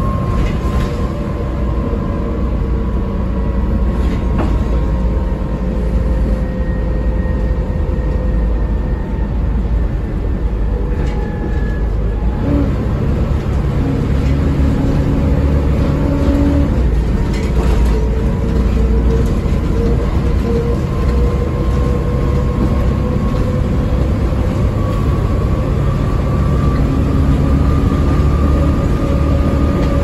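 Volvo B7TL double-decker bus with an Alexander Gemini body heard from the lower deck under way: its six-cylinder diesel and driveline run with a steady low rumble and a faint whine, against road noise. The whine shifts in pitch about twelve seconds in. Occasional light rattles come from the interior.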